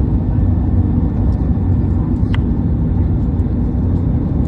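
Steady low rumble of an Airbus A321neo heard from inside the passenger cabin, with one sharp click a little past two seconds in.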